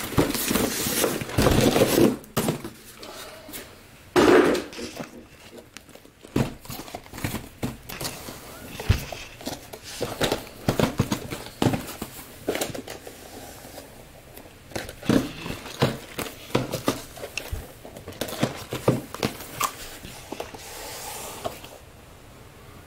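Cardboard shipping case being handled and emptied, with cardboard hobby boxes of trading cards lifted out and set down on a table: rustling and scraping cardboard, loudest in the first couple of seconds, then a run of light knocks and taps as the boxes are placed.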